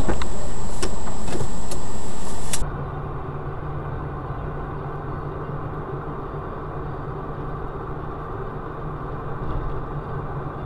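Car driving noise picked up by a dashboard camera inside the cabin: a loud steady noise with a few faint clicks, which cuts off about two and a half seconds in and gives way to a quieter, steady low engine and road hum.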